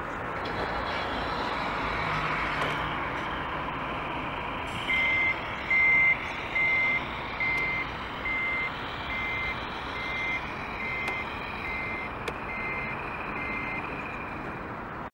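Reversing beeper of a scale RC Mercedes-Benz SK 3544 8x8 dump truck's sound module, played as the truck backs up: about a dozen short beeps at one pitch, a little more than one a second, starting about five seconds in. The first few beeps are the loudest and the rest are softer. Under them runs a steady running noise.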